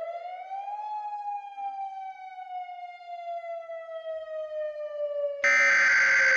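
Warning siren, one long wail that rises for about a second and then slowly winds down. About five seconds in, a loud, harsh burst of EAS header data tones starts and lasts about a second: the digital header that opens an emergency alert.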